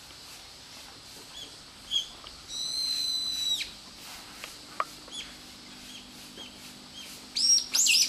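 Brown-eared bulbul calling: a few short, high notes, then one long, steady whistled note lasting about a second. Near the end come loud calls that slide sharply downward in pitch.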